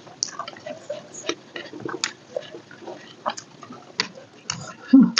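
Close-miked eating sounds: a person chewing with wet mouth clicks and smacks coming irregularly several times a second. A louder low thud about five seconds in.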